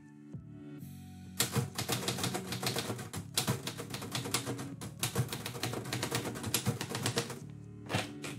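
Manual typewriter typed on at speed: a rapid run of keystrokes, type bars snapping against the platen, starting about a second and a half in and lasting about six seconds, with a few more strokes near the end.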